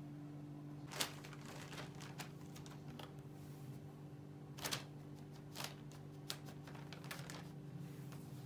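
Plastic shopping bag crinkling and rustling in sharp, irregular snaps as a kitten crawls around inside it, the loudest about a second in. A steady low hum runs underneath.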